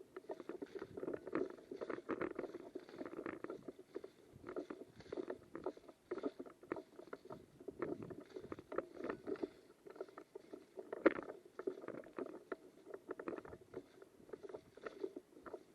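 Irregular rustling and crunching close to the microphone, the sound of the camera wearer moving on foot with gear brushing against clothing, with one sharper crunch about eleven seconds in.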